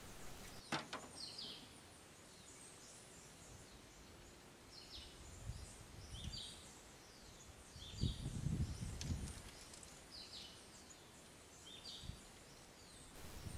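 A bird calling over and over in short high chirps, in little groups about every second. A brief low rumble comes about eight seconds in.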